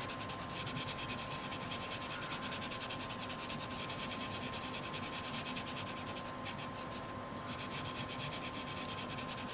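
Bambino colouring crayon scratching across the page of a colouring book in quick, even back-and-forth shading strokes, a faint steady rasp.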